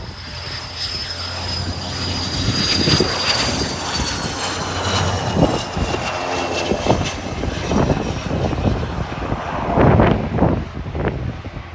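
Cessna 525 CitationJet's twin Williams FJ44 turbofans whining as the jet passes on landing, the whine sliding down in pitch over the first few seconds. Uneven gusty rumbling runs through the second half, loudest about ten seconds in.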